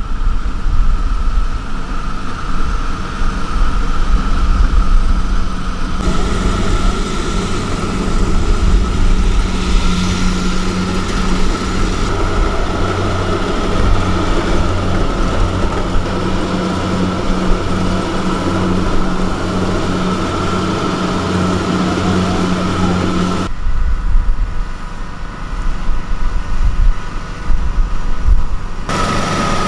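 Farm machinery running steadily, most likely a rice combine harvester's diesel engine at work, with a steady high whine over the low engine note. The sound changes abruptly about six seconds in, and again twice near the end.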